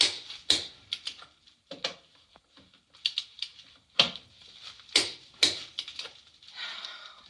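Sharp metallic clicks and knocks from hand tools working on wheel lug nuts, a socket and torque wrench, about ten of them at irregular spacing, with a short rustle near the end before the sound cuts off.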